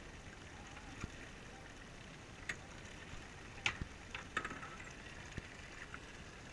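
Steady hum of the boat and water, with a handful of short sharp knocks and clicks as the gaff and a landed yellowfin tuna are handled on deck; the loudest knock comes a little past halfway.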